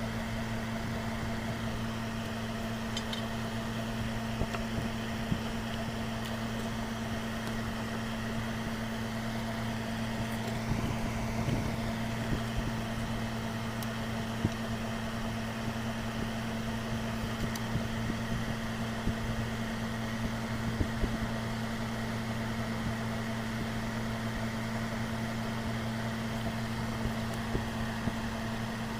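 Microwave oven transformer in a homemade spot welder humming steadily while powered, with a few short clicks scattered through it.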